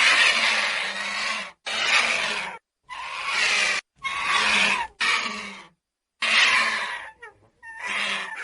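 Vulture giving harsh, raspy hissing calls, about seven in a row, each roughly a second long with short gaps between.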